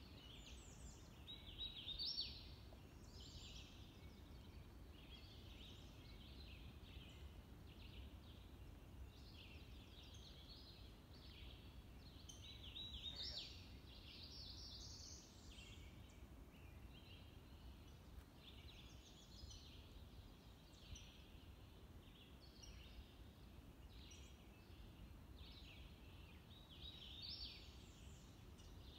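Woodland songbirds singing: short, high, quick songs repeat every few seconds, some overlapping, over a faint low rumble.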